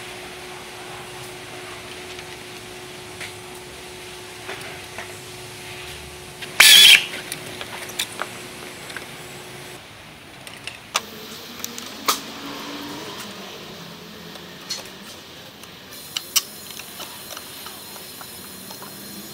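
Scattered clinks and knocks of hand tools and metal parts while an alternator is worked on in a car's engine bay. A faint steady hum runs through the first half, and a short, loud burst of noise comes about seven seconds in.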